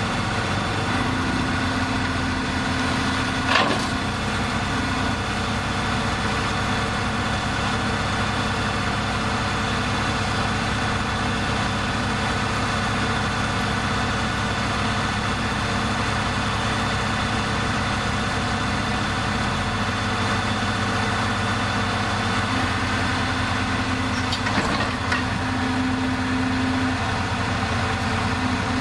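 Heavy diesel engine of a bulldozer idling steadily, its low note shifting slightly about two-thirds of the way through. A sharp knock sounds about three and a half seconds in, and a couple more come around 25 seconds in.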